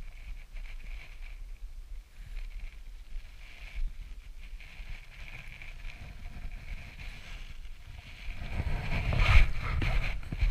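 Wind rumbling on the microphone with water lapping against a small boat. The rumble grows louder, with a few knocks, from about eight seconds in.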